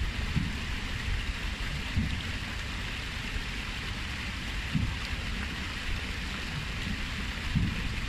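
Water from a stepped stone cascade fountain spilling down the steps into a pool: a steady splashing rush, with a few brief low rumbles.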